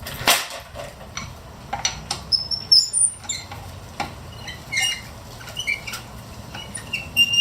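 Socket wrench snugging a car wheel's lug nuts by hand: irregular short clicks and knocks, with brief high squeaks among them.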